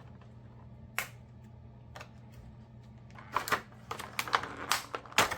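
Scissors and plastic doll packaging being handled: a single sharp click about a second in and another at two seconds, then a quick run of sharp clicks, snips and crackles from about three seconds on.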